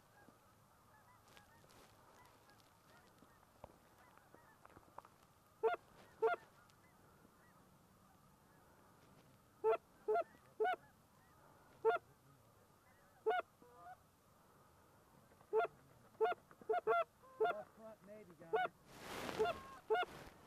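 Goose honks: short single honks, one or two at a time and a few seconds apart, coming faster in a quick run of honks and clucks near the end.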